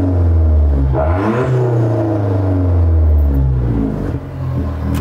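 Alfa Romeo Giulietta Quadrifoglio Verde's 1750 turbo four-cylinder blipped through a Ragazzon sports exhaust with its valve open: the revs rise sharply about a second in, then fall back toward idle. The open valve makes the exhaust direct and loud.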